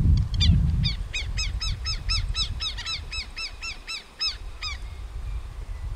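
Southern lapwing giving its rapid, repeated alarm call, about twenty sharp notes at four to five a second, while it dives at an egret; the calling stops a little before the end. Wind rumbles on the microphone, loudest in the first second.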